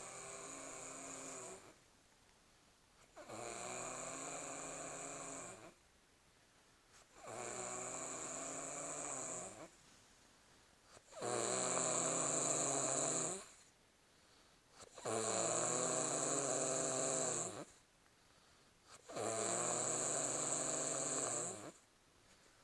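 Rhythmic snoring: six long, rasping snores about four seconds apart, each lasting around two seconds with quiet breathing gaps between. The last three are noticeably louder.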